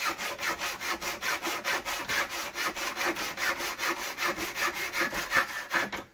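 Hacksaw cutting through a threaded 1/4-20 bolt held in a clamp, the blade going back and forth in rapid, even strokes.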